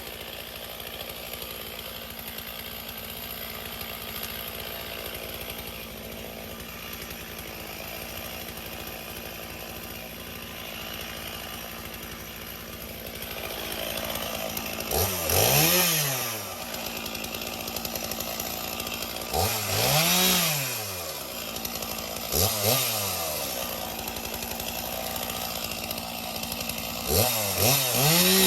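Chainsaw running at low speed, then revved up four times in short bursts in the second half, its pitch rising and falling back each time.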